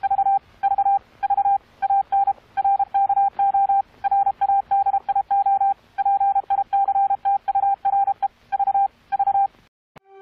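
Morse code: a single steady beep tone keyed on and off in short and long pulses, like a radio telegraph signal. It stops just before the end.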